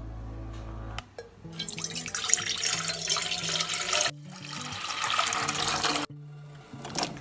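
Water poured from a hand-held container into an empty enamel pot, splashing loudly, in two pours with a short break about four seconds in; the second stops abruptly about six seconds in.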